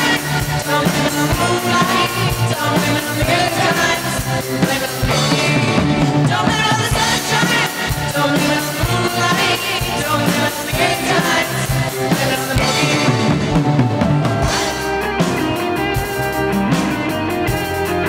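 Live rock-pop band music with drum kit and piano, while a group of young singers sing together into microphones.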